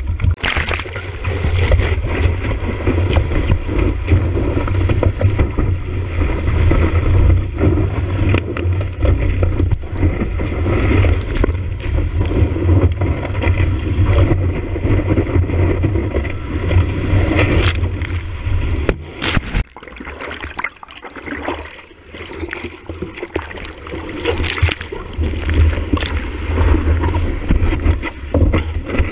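Water rushing and splashing along a surfboard as it runs on a wave, heard through a board-mounted action camera, with wind buffeting the microphone as a heavy low rumble. Sharp splash cracks come throughout, and the rumble eases for a few seconds about two-thirds of the way through.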